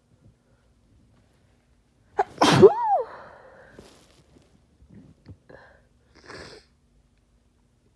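A woman with a cold sneezes once, harshly, about two seconds in, the burst ending in a voiced cry that rises and falls in pitch. A few short, much quieter sounds follow.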